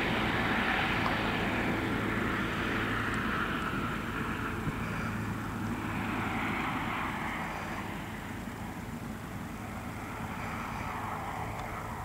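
Helicopter with a shrouded fenestron tail rotor climbing away after take-off: a steady rotor and turbine sound that slowly drops in pitch and fades as it flies off.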